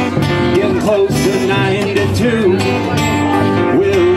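Live acoustic country band playing: upright bass and strummed acoustic guitar under a melody line that slides between held notes, with no lyrics sung.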